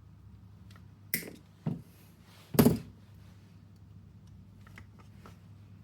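Three sharp snaps and a few lighter clicks of hand tools and small fittings being worked on an HPA air line while it is cut and fitted with a quick-disconnect. The loudest snap comes about two and a half seconds in, over a low steady hum.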